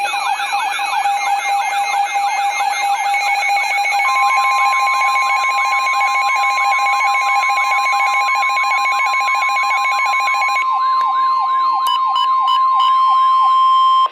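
Weather radio alert sounding for a tornado warning: a falling siren-like whoop repeats about three times a second. About four seconds in, the steady NOAA Weather Radio warning alarm tone joins it and holds until both cut off together.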